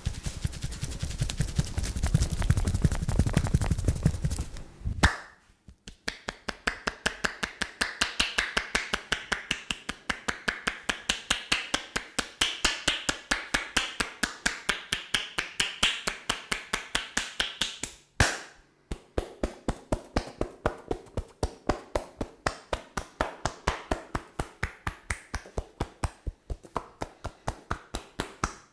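Percussive hand-strike massage on a customer's body: the masseur's hands tap in a fast, even rhythm of about five strikes a second. The first five seconds are a faster, heavier pounding, and the rhythm breaks off briefly twice.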